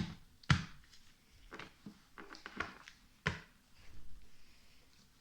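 About five light, scattered knocks and taps, the loudest about half a second in, as objects are handled on a tabletop.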